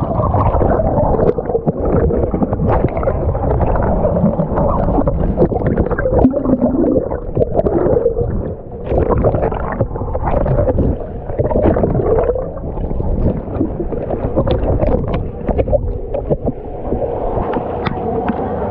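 Pool water sloshing and gurgling against a camera held at the surface of a swimming pool, heard muffled and wavering as it dips underwater.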